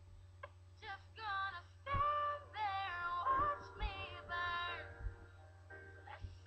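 Recorded pop song playing: a woman's sung vocal line with held, sliding notes, over a steady low hum.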